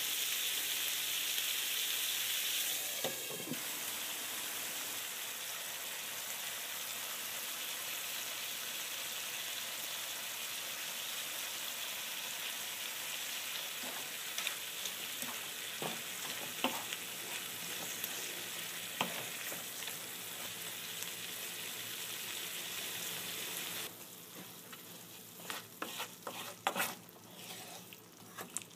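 Chicken pieces and fresh fenugreek (methi) leaves sizzling in a frying pan while a spatula stirs them, with scattered scrapes and taps against the pan. Near the end the sizzle is quieter and the spatula taps stand out more.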